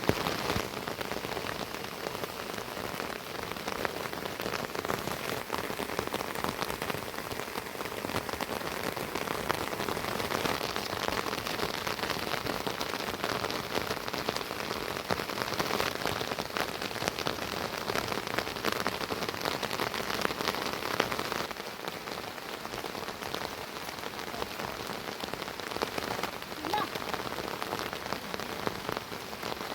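Steady heavy rain falling, thick with the sound of individual drops striking surfaces; it eases a little about two-thirds of the way through.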